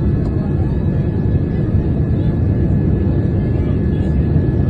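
Steady cabin rumble of a Boeing 787-9 in flight on approach, heard from a window seat, with a thin steady high whine running through it.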